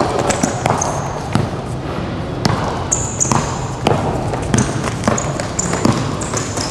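Basketballs bouncing on an indoor court during play, irregular thuds with short high squeaks in between.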